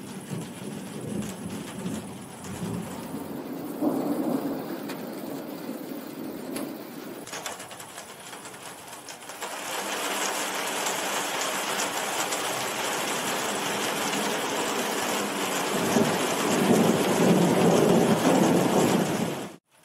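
Heavy rain falling steadily, with thunder rumbling at the start, again about four seconds in, and a louder, longer rumble near the end. The rain gets heavier about ten seconds in. The sound cuts out abruptly for a moment just before the end.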